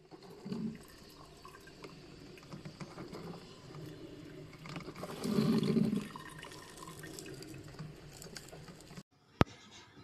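Water gurgling and dripping inside a drip coffee maker, with a louder swell about halfway through. A single sharp click comes near the end.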